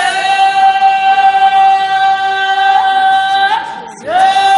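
Voices singing a long held high note in a chant, the note scooping up at its start. It is held for about three and a half seconds, breaks off, then scoops up and is held again near the end, with a fainter lower voice beneath.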